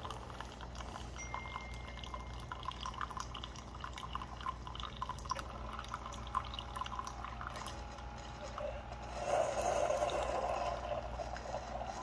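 Keurig single-serve brewer dispensing coffee from a pod into a ceramic mug: a thin stream pouring and dripping over a steady low hum, near the end of the brew cycle. The sound grows louder about nine seconds in.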